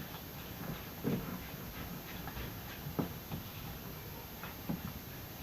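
Slime being stirred in a container: light, irregular clicks and taps of the stirring utensil and slime, the sharpest about a second in, at three seconds and near the end.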